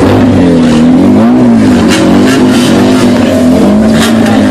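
Race car engine revving hard at full throttle as it pulls away, its pitch rising and falling repeatedly. Very loud.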